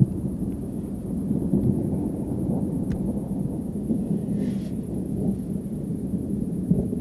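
Thunder from a distant thunderstorm: a continuous low rolling rumble.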